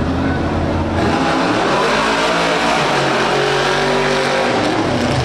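Caged tuff-truck pickup's engine revving hard as it launches off the start line, going loud from about a second in, then pulling at full throttle with a slowly rising engine note.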